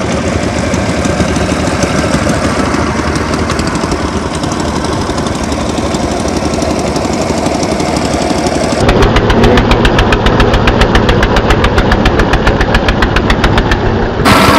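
Fishing boat's engine running loudly and steadily. About nine seconds in it gets louder and takes on a rapid, even beat.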